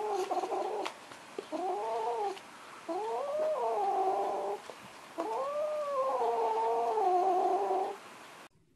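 A gray-and-white kitten meowing four times, each call rising and then falling in pitch. The calls grow longer, from short mews to drawn-out cries, the last about two and a half seconds long.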